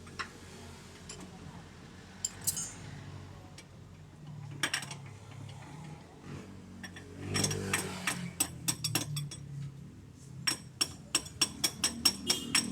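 Hand tools clinking and clicking against metal parts: a few scattered knocks, then a quick run of sharp clicks, about four a second, near the end.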